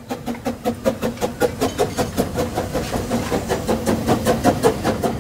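Ffestiniog Railway narrow gauge steam locomotive passing close by with its train, its exhaust chuffing fast and evenly at several beats a second. It grows louder as it comes past and then eases off.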